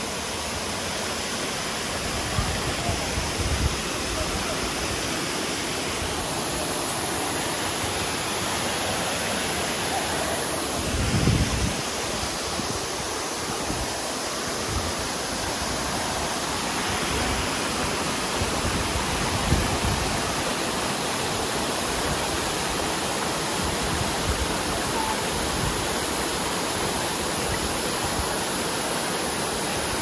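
Steady rush of fast-flowing water, with a few brief low thumps, the strongest about eleven seconds in.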